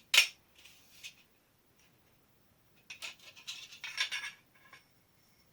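Light metal clinks and scrapes of aluminium tube or profile pieces being handled: a sharp clink just after the start, then a cluster of scraping and clinking about three to four seconds in.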